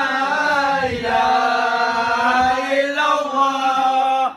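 Men's voices chanting together in long held notes over a steady low drone.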